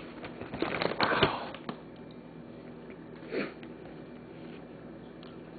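A person sniffing sharply a couple of times, mixed with a few short clicks and knocks, most of it in the first two seconds and one more brief sniff or breath about three and a half seconds in.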